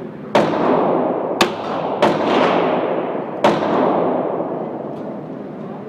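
Revolver fired four times at uneven intervals in an indoor shooting range, each shot a sharp crack followed by a long echo dying away in the hall.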